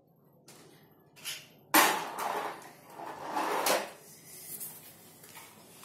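Hard plastic toy pieces knocking and clattering as they are handled. A sharp knock comes about a second and a half in, followed by two spells of rattling and a few lighter taps.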